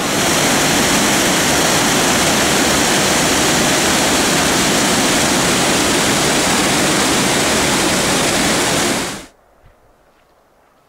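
Waterfall rushing, a loud steady roar of falling water that cuts off abruptly about nine seconds in.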